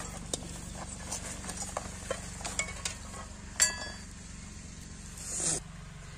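Metal utensils and ingredient packets being handled and set down: scattered light clicks and rustles, one ringing metal clink about three and a half seconds in, and a short rising rush of noise near the end.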